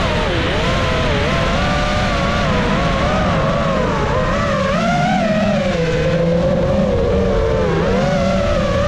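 FPV quadcopter's motors and propellers whining, the pitch wavering up and down continuously with the throttle, over a low rumble of wind on the drone's camera.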